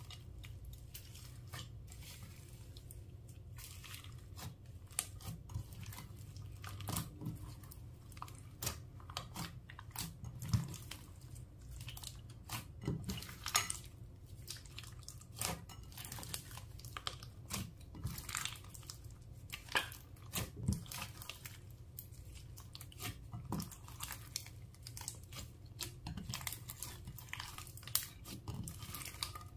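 Slime being mixed and squished, making irregular sticky crackles and small clicks over a faint low hum.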